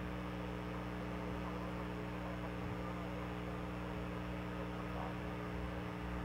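A steady low hum of several even tones over a constant background hiss, unchanging throughout.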